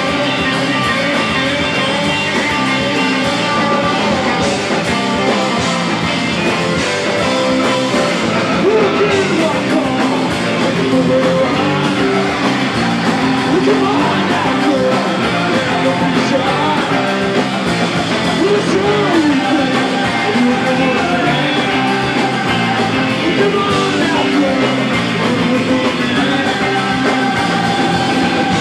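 Surf-garage rock band playing live and loud, electric guitar and combo organ over the full band, with singing.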